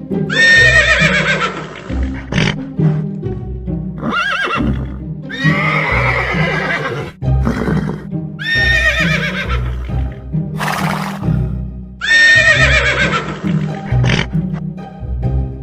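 Horse neighing, about five whinnies spread through the stretch, over background music with a steady bass line. A short hissing burst comes about eleven seconds in.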